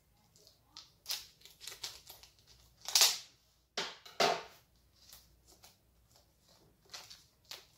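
Plastic shrink-wrap being slit and peeled off a hardcover book: scattered crinkles and rasps, the loudest about three seconds in and again just after four.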